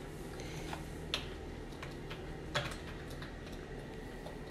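A few faint, scattered light clicks and taps, the clearest about a second in, over a low steady hum.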